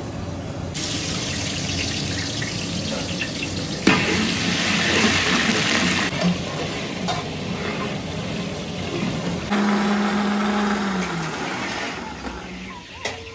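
Chicken sizzling in oil in a large aluminium cooking pot over a gas burner: a steady frying hiss, loudest a few seconds in. Near the end a short steady hum drops in pitch as it stops, and there are a couple of light knocks.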